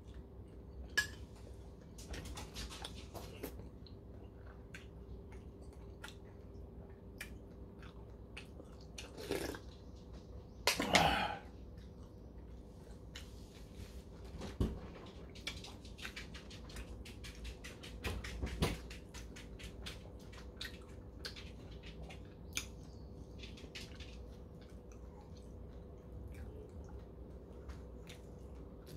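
A man chewing and eating close to the microphone: steady wet chewing and lip smacking made of many small clicks, with the odd tap of a metal spoon on a bowl and a couple of louder mouth noises about ten seconds in.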